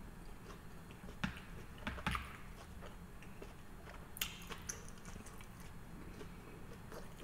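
Soft chewing and mouth sounds of a man eating sushi, with a few short faint clicks and taps, the sharpest about four seconds in, as wooden chopsticks pick at the rolls on a wooden board.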